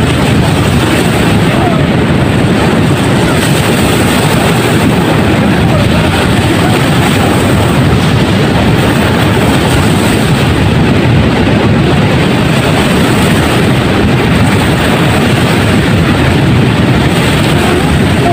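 Ocean surf rushing and breaking on the beach, with wind buffeting the microphone in stormy weather: a loud, steady, unbroken roar with a flickering low rumble.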